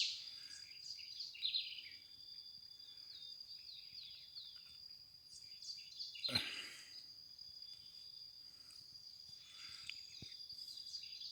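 Birds chirping in quick falling notes over a steady high-pitched insect drone, with a short louder rustling noise about six seconds in.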